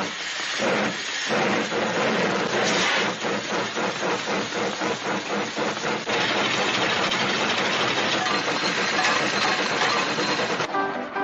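Hand-made studio sound effect of a steam locomotive chugging: a loud hissing chuff pulsing in a quick, even rhythm. Musical tones join near the end.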